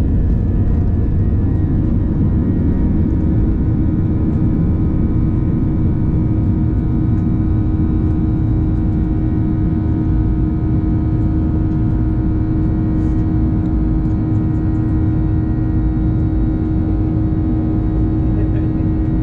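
Boeing 737 jet engines at take-off thrust, heard from inside the cabin: a loud, steady roar with a constant droning hum, as the plane leaves the runway and climbs out.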